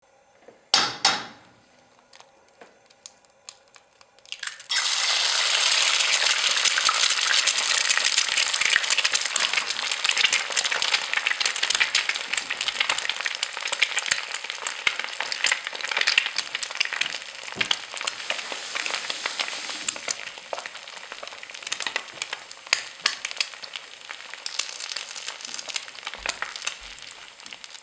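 Two sharp knocks about a second in, then eggs frying in a pan. The sizzling starts suddenly about four and a half seconds in and carries on as a dense crackle and spitting of hot fat, easing slightly near the end.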